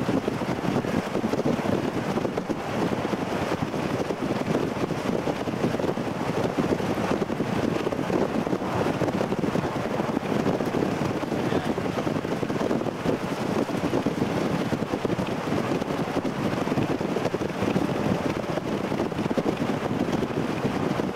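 Steady wind rush and road noise from a vehicle driving at speed, with wind buffeting the microphone.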